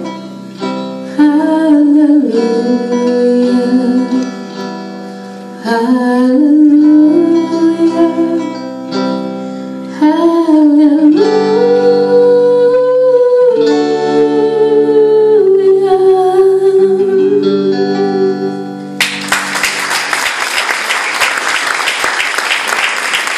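A young woman singing long held, gliding notes over an instrumental accompaniment as the song closes. Near the end the singing stops and audience applause breaks out.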